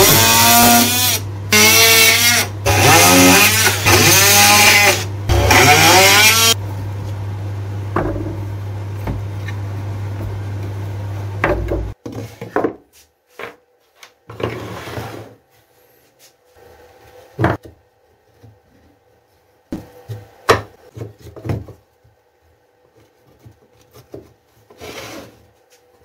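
Oscillating multi-tool cutting through the holding tabs of a plywood sheet in several short runs, its whine bending in pitch as the blade loads, then humming more steadily until it stops about halfway. Then wooden pieces knock and slide against each other as they are handled on a workbench.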